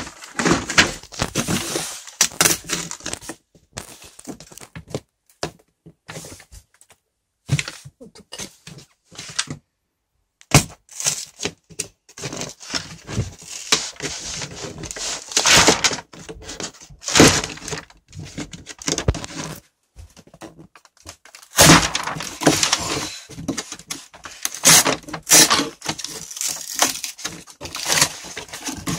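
Hands handling a cardboard LEGO set box: irregular rubbing, scraping and knocks against the cardboard, broken by short silent gaps.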